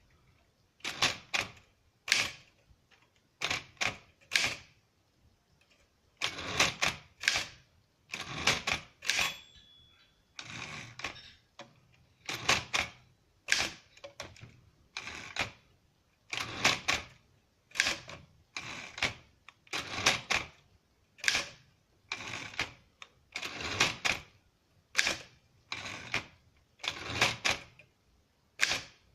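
Keys of a 1939 Triumph Standard 12 manual typewriter being struck one at a time, clacking at an uneven pace of about one or two strokes a second with short pauses. A brief thin ringing tone sounds about nine to ten seconds in.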